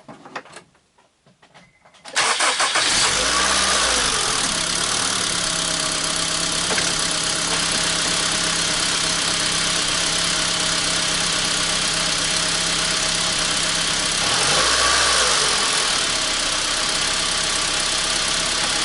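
2003 Honda Civic four-cylinder engine starting up about two seconds in and idling steadily with the alternator belt removed, a test of whether the grinding noise is still there. Its pitch bends briefly just after starting and again near the end.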